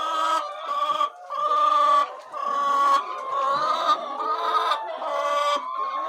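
Chickens clucking, with a series of drawn-out calls one after another.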